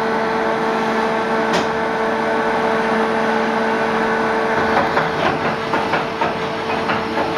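Tsugami MA 5.5FP CNC machining center running: a steady mechanical whine and hum, with a sharp click about a second and a half in. In the second half one of the hum tones drops out and irregular clicking and rattling start.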